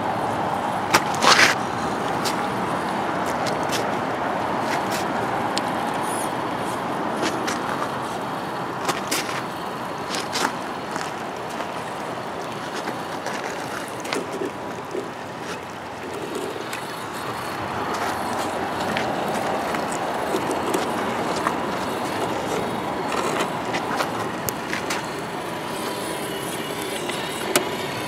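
Shallow stream water running steadily over rocks, with scattered sharp clicks and knocks from RC scale crawler trucks' tyres and chassis on the stones; the loudest cluster of knocks comes about a second in.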